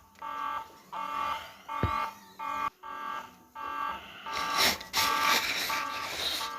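Fire alarm beeping in short, repeated electronic tones, about one and a half to two beeps a second. A dull thump comes about two seconds in. A loud rushing noise joins from about four seconds in.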